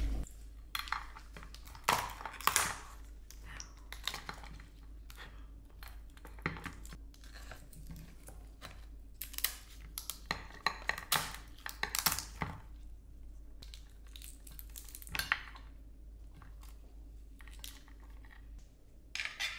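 Soy-sauce marinated crab (ganjang gejang) being handled and cut apart on a ceramic plate: irregular short cracks, snips and clicks as the blade goes through the shell and strikes the plate, with plastic rustling.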